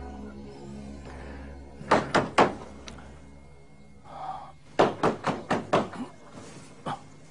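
A wooden fish (mõ) being knocked in short runs: three quick knocks about two seconds in, then a run of about five knocks near five seconds in and a single knock near the end.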